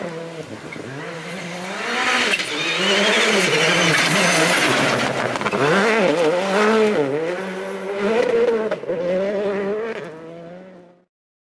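Citroën C3 Rally2's turbocharged 1.6-litre four-cylinder rally engine revving, its note rising and dropping again and again with throttle and gear changes as the car passes at speed on gravel. Gravel spray hisses loudest in the middle, then the engine fades as the car drives away.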